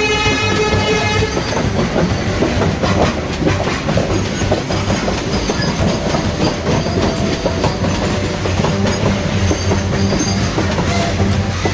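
Train running on the track, its wheels clicking steadily over the rail joints over a steady low rumble; a horn blast carrying on from before ends about a second in.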